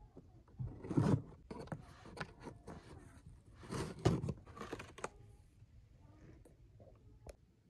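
Packing tape being ripped off a cardboard box and the cardboard flaps pulled open, in two loud tearing bursts about a second in and about four seconds in, with lighter scraping and rustling between them and a single click near the end.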